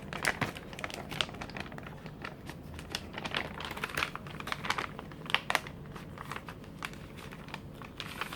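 Paper and plastic packaging being handled: irregular crinkling and rustling with sharp little crackles, several a second.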